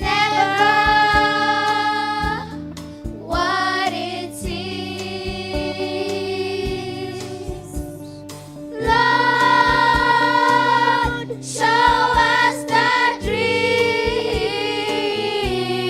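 A choir sings a slow song in long held notes over an instrumental backing with steady bass notes.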